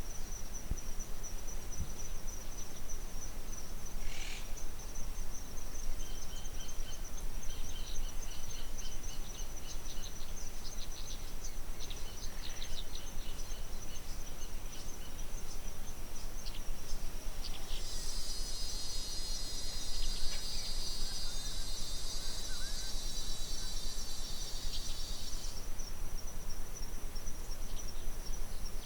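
A steady high-pitched insect trill runs through, over low outdoor background noise. A second, louder insect buzz joins for about seven seconds past the middle, then cuts off. Scattered short chirps sound in the first half.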